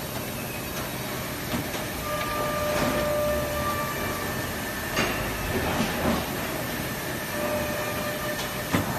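Steel drawers of a heavy-duty tool cabinet rolling out and back on their metal runners, with clinks of the steel dies inside and a sharp knock near the end as a drawer shuts, over steady workshop background noise.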